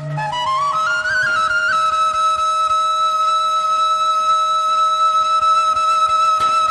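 Zurna, a Levantine double-reed shawm, playing over a steady held drone note. The melody climbs stepwise in the first two seconds, holds one long high note, then begins to fall near the end.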